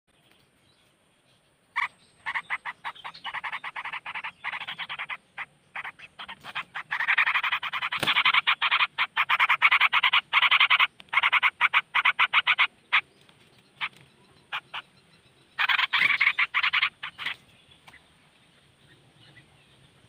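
An animal's rapid chattering call: runs of sharp clicks, many per second, starting about two seconds in and stopping shortly before the end, loudest in the middle. A single sharp knock about eight seconds in.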